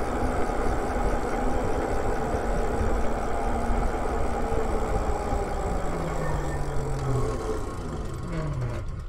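Lyric Graffiti electric bike being ridden: a steady rush of wind and tyre rumble on asphalt, with a faint motor whine. Near the end the whine falls in pitch and the noise eases as the bike slows for an intersection.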